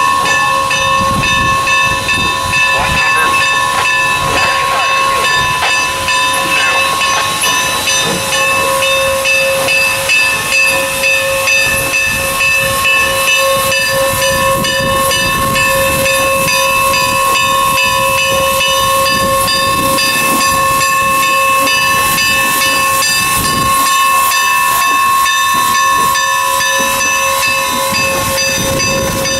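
N&W M-class 4-8-0 steam locomotive 475 moving slowly past with a long, loud steam hiss carrying several steady ringing tones at once, held without a break.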